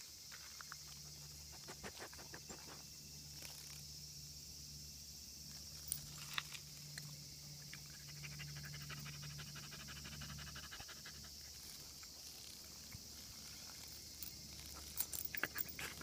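Steady high-pitched chorus of summer cicadas, with a dog panting and sniffing close by. A few sharp clicks come, with a cluster of them near the end.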